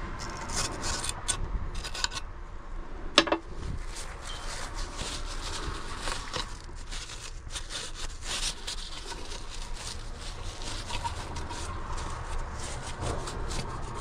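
Scraping and rubbing on a corroded car body control module circuit board as the corrosion is cleaned off, in many short scratchy strokes, with one sharp click about three seconds in.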